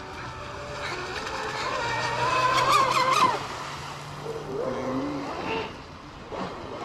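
Radio-controlled speedboat's electric motor whining at speed, rising in pitch and loudness to a peak about three seconds in, then cutting back sharply, with lower rising and falling sweeps as the throttle changes through a turn.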